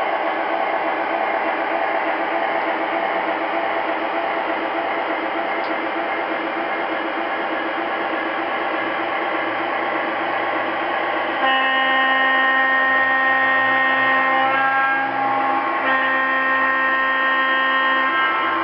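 Lionel O scale freight cars rolling past on the track with a steady running noise. About two-thirds of the way through, the Lionel RS-11 diesel's horn sounds in two long blasts with a short gap between them.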